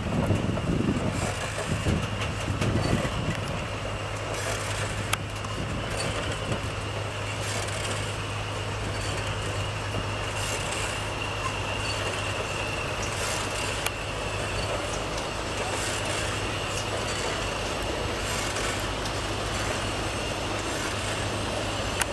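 Ex-SNCB series 73 diesel shunting locomotive moving slowly, its engine giving a steady low drone with a thin high whine held above it. The low rumble is heavier for the first few seconds, then settles to an even level.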